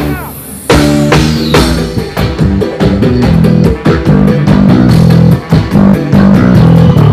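Live band playing loud, with electric bass guitar and drum kit prominent. A hit at the start is followed by a short break, and the full band comes back in under a second later.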